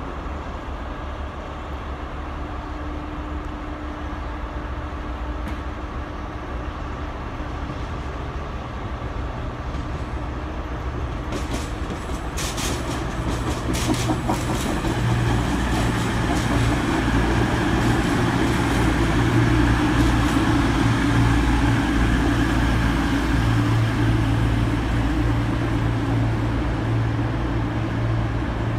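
CrossCountry Voyager diesel multiple unit arriving, its underfloor diesel engines humming and growing louder as it approaches. A quick run of clacks from the wheels over the pointwork comes about halfway through.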